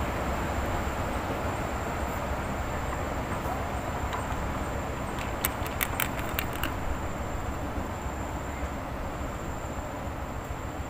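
Steady low outdoor background noise with a thin high tone, broken a little past halfway by a quick run of about six sharp clicks from the angler's hand working a spinning reel on a prawn rod.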